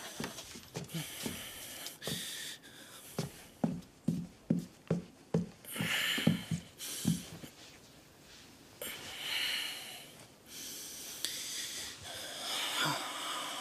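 A run of quick, soft footsteps across a room, then heavy, wheezy breaths and the rustle of bedding as a man gets into bed.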